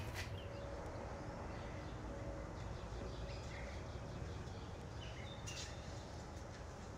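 Quiet steady background noise with a few faint bird chirps.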